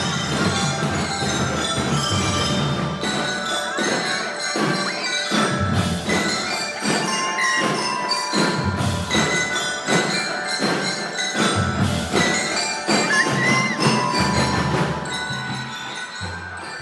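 A drum and lyre corps playing: bell lyres ringing out a melody over a steady beat of marching drums.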